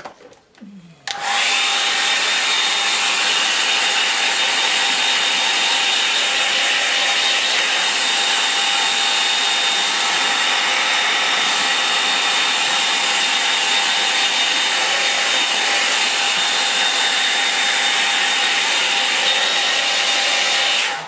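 Handheld hair dryer switched on about a second in and running steadily, a loud rush of air with a steady whine over it, blowing on wet watercolour paint to dry it; it cuts off at the end.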